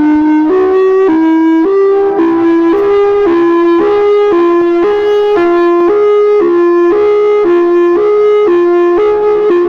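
Electronic outdoor warning siren sounding a hi-lo tone: a reedy tone alternating between two pitches about every half second, the pair creeping slightly higher.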